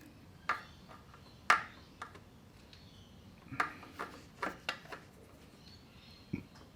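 A series of sharp knocks and clinks, about eight in all, irregularly spaced, the loudest about a second and a half in.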